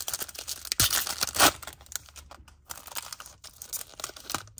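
Foil wrapper of a Bowman baseball card pack being torn open and crinkled, loudest in two rips about a second in and a second and a half in, then lighter crinkling as the cards are pulled out.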